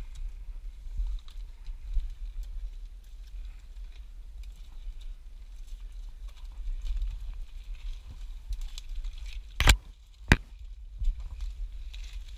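Mangrove branches and twigs rustling, scraping and clicking as they are pushed aside by hand, over a steady low rumble of handling noise. Near the end come two loud sharp cracks, a little over half a second apart.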